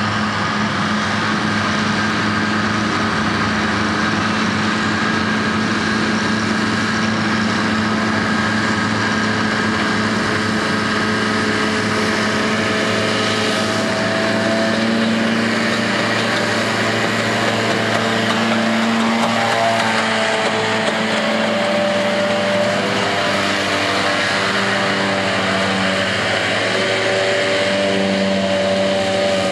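Farm machinery diesel engine running steadily, its pitch shifting slightly now and then.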